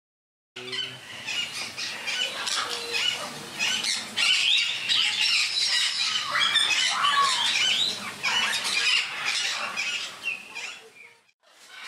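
Parrots squawking and chattering: many short, overlapping calls sliding up and down in pitch. The calls start abruptly and fall away briefly near the end.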